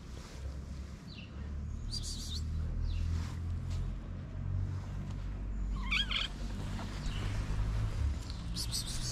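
Four or five short, high chirping calls a second or more apart, the strongest about six seconds in with a wavering pitch, over a steady low rumble.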